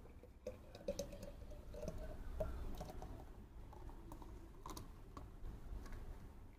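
Thick milkshake pouring in a stream into a glass bottle, a faint liquid sound with small scattered pops and clicks as the bottle fills.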